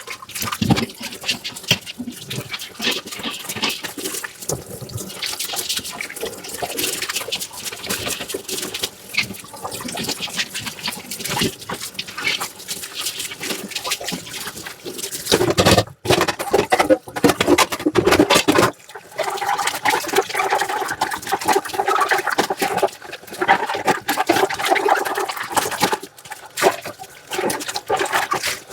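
Dishes being washed by hand in a sink: water splashing and running over crockery, sponge scrubbing, and many small knocks and clinks of dishes. It gets louder and busier a little past the middle.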